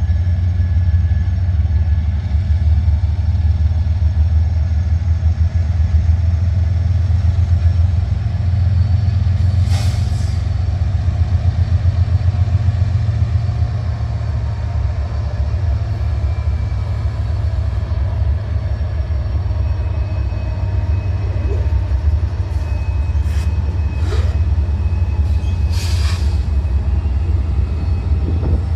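Freight train rolling past: a steady, loud low rumble of wheels on rail, with a sharp clank about ten seconds in and a few more near the end.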